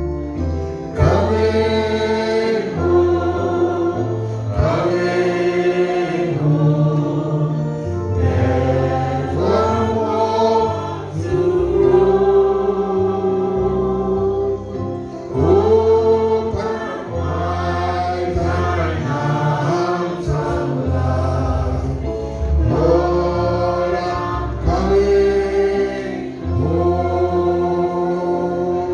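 Gospel song sung by a choir and congregation over keyboard and a bass beat.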